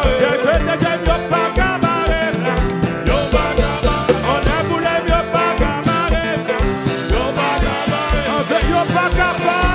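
Live kompa band playing, with a male lead vocal over a steady bass-drum beat.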